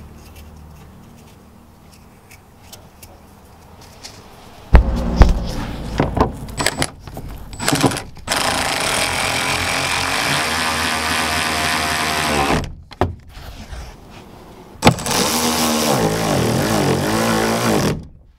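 Cordless drill with a T50 Torx bit, driving the rear seat-belt anchor bolt back in: two runs of a few seconds each, the motor's pitch sinking near the end of the first. Before them come a loud knock and a few clicks of metal parts being handled.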